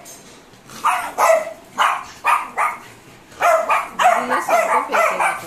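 Small Pomeranian-type dog barking repeatedly: a quick run of about a dozen short, sharp, high barks in clusters, starting about a second in.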